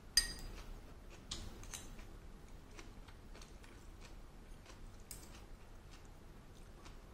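Metal chopsticks clicking against a ceramic bowl: one sharp, ringing clink just after the start, then scattered fainter clicks and taps.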